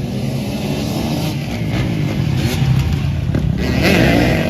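Several off-road racing motorcycles revving hard as they race past, their engines overlapping and rising and falling in pitch, loudest about four seconds in.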